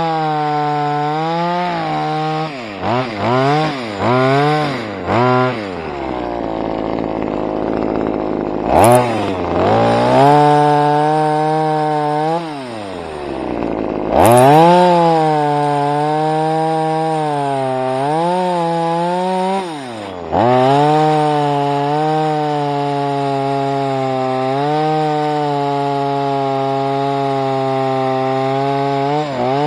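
Two-stroke Stihl chainsaw running, revved in several quick blips in the first few seconds; in the middle its note sinks low for several seconds, then climbs back, with two sharp knocks about a second and about five seconds into that stretch. Later it settles to a steady running note with a few short blips.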